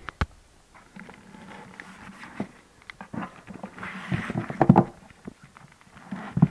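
Handling noise: scattered clicks, rustling and a few knocks, loudest just before five seconds in.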